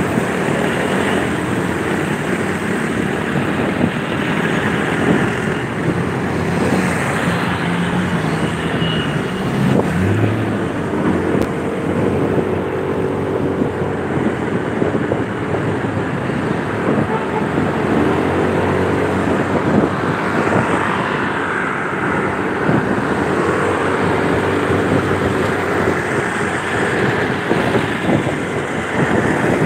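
Motorcycle engine running while riding in traffic, its pitch rising and falling several times with the throttle, over a steady rush of road noise.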